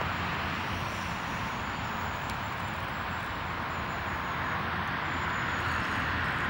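Steady rushing outdoor background noise with a low rumble underneath, even throughout, with no distinct events standing out.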